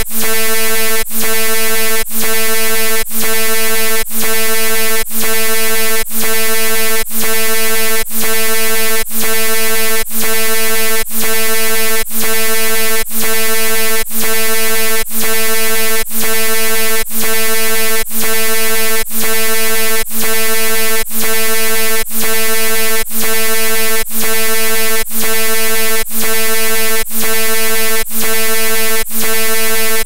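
Synthesized tinnitus-masking sound: a loud, steady electronic drone with a high hiss on top. It dips briefly about once a second.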